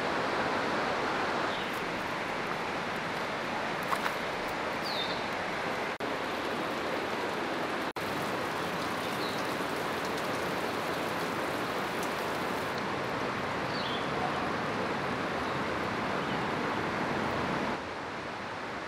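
Steady rush of river water, changing abruptly in level a few times.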